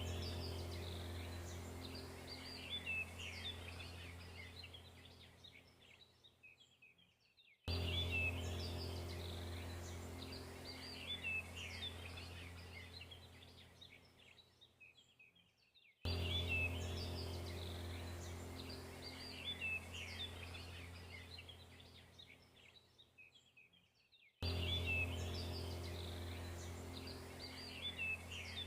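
A looped background track of high bird chirps over a low, steady hum. The same few seconds start abruptly, fade away and begin again about every eight seconds.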